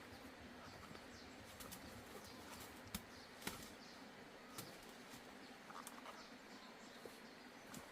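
Quiet outdoor ambience with faint, short high bird chirps repeating, and a few light sharp clicks about three, three and a half and four and a half seconds in.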